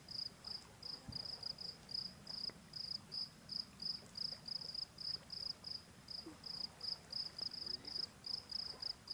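Insects chirping: a steady, high-pitched pulse repeating about four times a second, over a faint low rumble.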